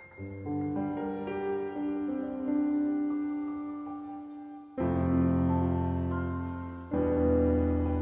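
Sampled Steinway Concert D grand piano from the Heavyocity ASCEND library playing slow, sustained chords: notes come in one after another over the first couple of seconds, then two deep chords are struck about five and seven seconds in and left to ring.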